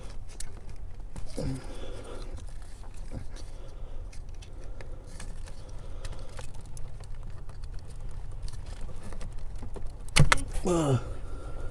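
Small clicks and rattles of hands working a relay and its connector loose under a car's dashboard, with a steady low hum underneath. About ten seconds in comes a sharp knock, the loudest sound, followed by a short falling-pitched sound.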